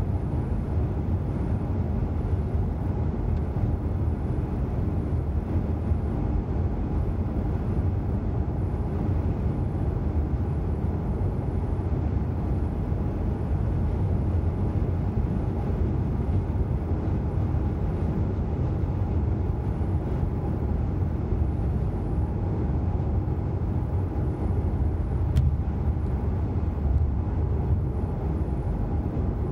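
Steady road noise inside a car cruising at speed on a dual carriageway: a low, even drone of tyres and engine heard through the cabin.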